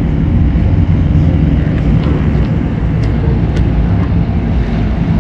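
SuperCat-class offshore racing catamarans running flat out, a loud, steady, low engine drone.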